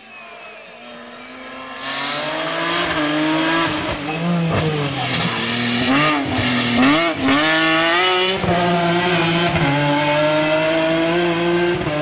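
BMW Z4 coupé rally car approaching and passing at speed, its engine revving up and down through gear changes. It grows louder about two seconds in, and a cluster of sharp cracks comes as it goes by. Near the end it holds a steady high note.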